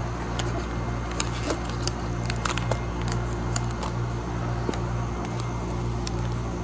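Paper sandwich wrappers crinkling in scattered light ticks as wrapped sandwiches are handled and set on metal sheet pans. A steady low electrical hum from kitchen equipment runs underneath.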